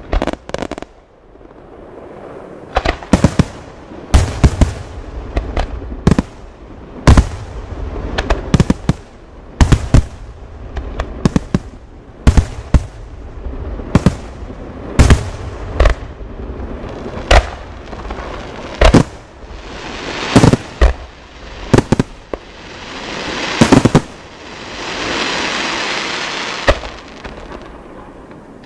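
Aerial fireworks shells bursting in a dense display: sharp bangs come irregularly, roughly one to two a second, over a steady low rumble. About twenty-four seconds in, a steady hiss lasts about three seconds, and the bangs thin out near the end.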